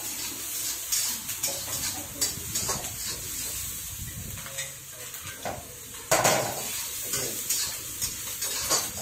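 Vegetables sizzling in a hot iron kadai on a gas burner while a metal ladle stirs and scrapes them, with repeated short clanks of ladle on pan. The loudest burst of sizzle and clatter comes about six seconds in.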